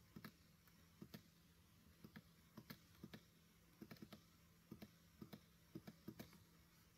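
Faint clicks of a computer mouse button, about a dozen, many in quick pairs, as drop-down menus are opened.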